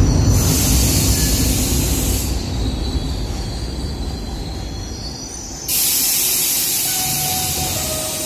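Traditional Milan Metro Line 2 train braking to a stop, its rumble fading while the wheels and brakes squeal in high, wavering tones. About two thirds of the way in a sudden loud hiss of released air starts and carries on as the train stands.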